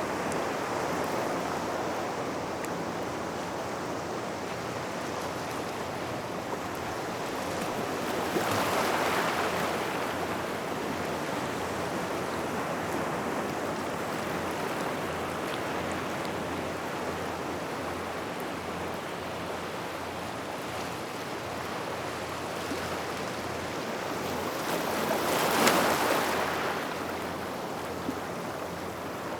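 Small waves washing onto a gravel shore near rocks, a steady wash of surf that swells twice as waves break, about 9 seconds in and, loudest, near the end.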